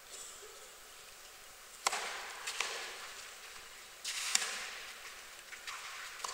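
Tennis ball struck by rackets during a rally in an indoor arena: a series of sharp hits, the loudest about two seconds in and again just after four seconds, with more hits near the end.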